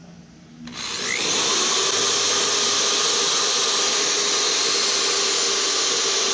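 Corded Black & Decker electric drill starting up under a second in and running steadily at full speed, driving a countersink bit into the corner joint of a wooden frame.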